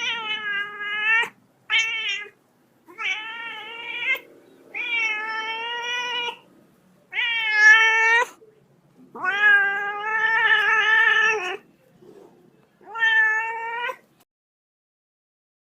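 A kitten meowing repeatedly: seven high meows with short gaps between them. The sixth, about two-thirds of the way in, is the longest at over two seconds.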